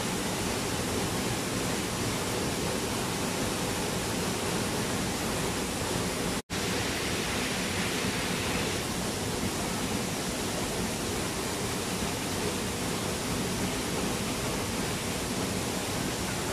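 Waterfall pouring into a rock pool: a steady, even rush of falling water. The sound cuts out for an instant about six and a half seconds in.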